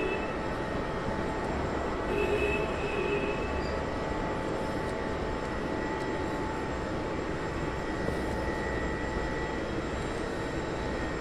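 Steady droning roar of fertilizer-plant machinery, with faint steady whining tones above it and a brief higher pitched sound about two seconds in.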